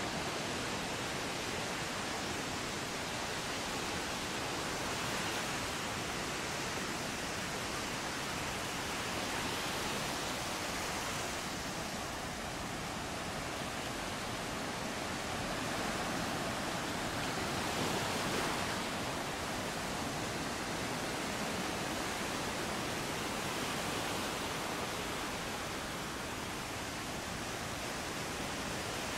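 Steady rush of surf breaking and washing up a sandy beach, swelling gently now and then and loudest about eighteen seconds in.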